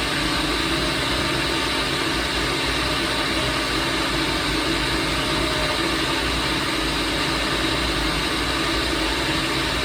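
Countertop blender running steadily, grinding up a smoothie.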